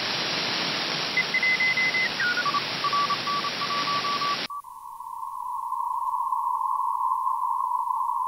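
Shortwave receiver static from an RTL-SDR in upper-sideband mode, with a Morse code tone that steps down in pitch as the dial is tuned and then keys on and off. About halfway through, the wide hiss suddenly narrows to a thin, pitched hiss around one tone as the receiver is switched to a narrow CW filter.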